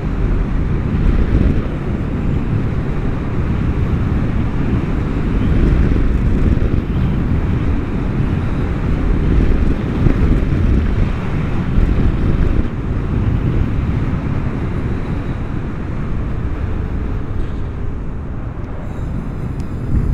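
Steady wind rushing over the helmet-mounted microphone while riding a Vespa GTS300 HPE scooter at road speed, with the scooter's single-cylinder engine and tyre noise underneath.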